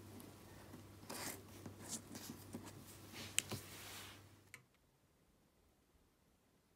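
Close-up scratching and rustling of a hand tool rubbing over small pieces of leather on a cutting mat, with scattered light clicks and one sharp click about three and a half seconds in. A little after that the sound drops to near silence.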